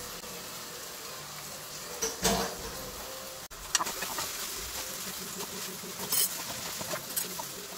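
Noodles being stirred and tossed in a frying pan on the stove: a low steady sizzle with a few light clinks and scrapes of the metal utensil against the pan.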